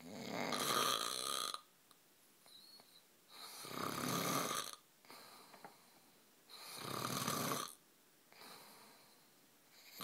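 A man snoring heavily in a steady rhythm: three long snores about three seconds apart, each lasting over a second, with quieter breaths between them.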